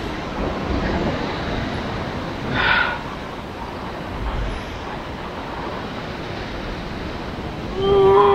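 Sea surf washing against the rocks at the foot of a cliff, mixed with wind on the microphone, with a brief louder rush about two and a half seconds in. Near the end a loud steady pitched tone with overtones begins.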